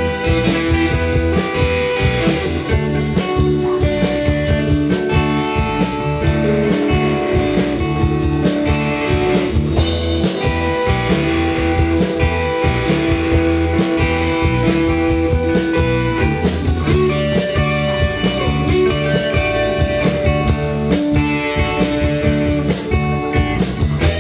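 Live band playing an instrumental break: electric guitar over a drum kit, with held notes and a steady beat, no singing.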